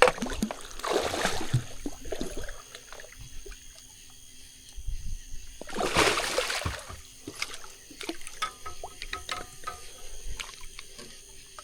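Water splashing as a hooked catfish, taken for a blue cat, thrashes in the shallows while it is brought in to the bank. There are two louder splashes, one about a second in and one about six seconds in, with lighter sloshing between them.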